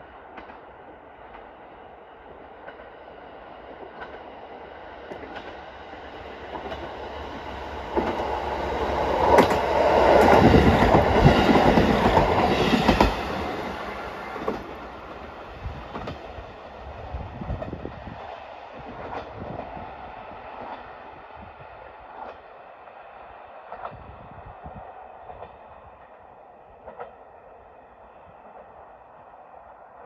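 Diesel train passing through the station without stopping. Its noise builds to a peak about ten seconds in, then slowly fades as it moves away, with wheels clicking over rail joints.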